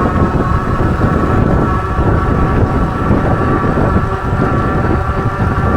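Wind buffeting the microphone on a moving e-bike, with a steady high whine from the Ariel Rider Kepler's 1,000-watt rear hub motor under power.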